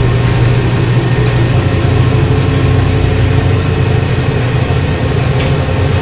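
Steady low mechanical drone, like a large motor or engine running, with a fainter steady whine above it: a laboratory-machine sound effect.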